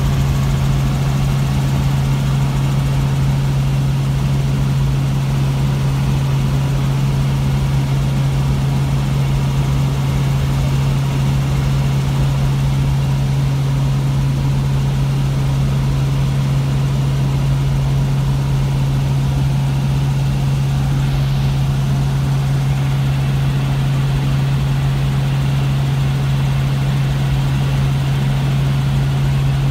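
Helicopter in steady flight heard from inside the cabin: an even, unchanging drone of rotor and engine with a strong constant low hum.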